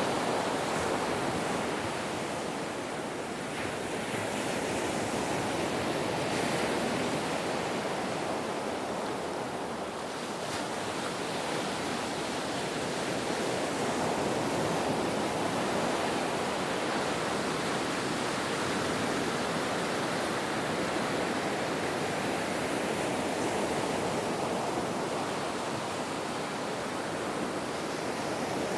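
Ocean waves washing onto a shore: a continuous surf rush that swells and eases gently every several seconds.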